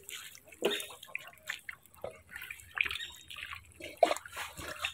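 Small, irregular splashes and drips of shallow muddy water as a triangular bamboo-framed hand net is worked through it and lifted with a catch of small fish.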